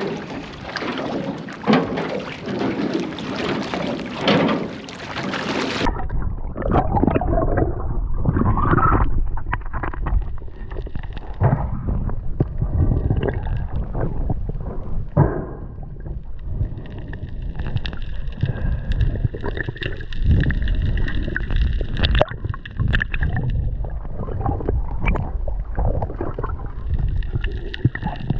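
Wind and water noise above the surface. About six seconds in, the sound turns suddenly muffled and low: the camera has gone under, and underwater gurgling and water movement follow, with irregular knocks.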